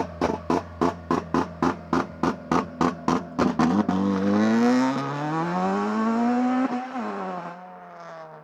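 Honda Civic Type R FN2's remapped 2.0-litre i-VTEC four-cylinder held on launch control, the rev limiter cutting in and out about four times a second. It then launches: the revs climb, dip briefly, climb again, and fall away after a single sharp crack as the throttle closes, the sound fading near the end.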